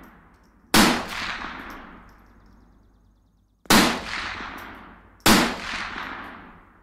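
Three single rifle shots, the first about a second in and the last two a second and a half apart. Each is a sharp crack followed by a long echoing tail that dies away over a couple of seconds.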